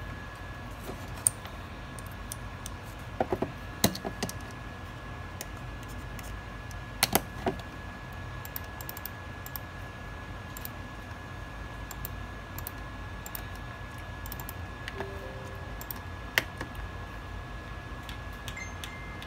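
Scattered clicks from a computer mouse and keyboard, a few coming in quick clusters about three and seven seconds in, over a steady faint high whine and a low hum.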